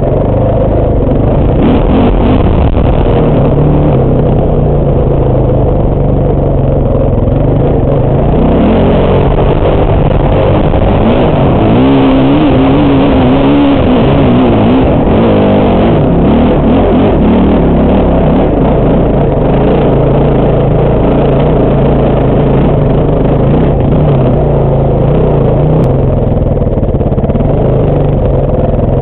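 Dirt bike engine running and revving as the bike is ridden over a dirt trail. The engine note climbs and wavers around the middle as it powers up a steep bank.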